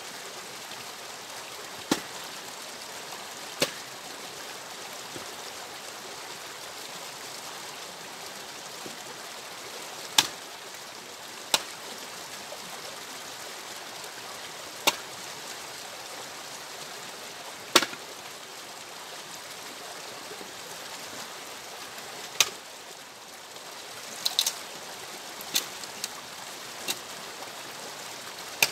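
Axe splitting firewood logs: about a dozen sharp cracks of the blade striking the wood, irregularly spaced a few seconds apart and coming quicker near the end, over a steady rushing hiss.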